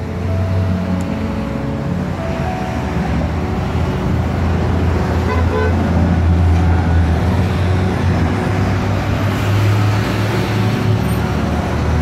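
Steady rumble of road traffic from a busy highway, cars passing continuously and growing a little louder partway through.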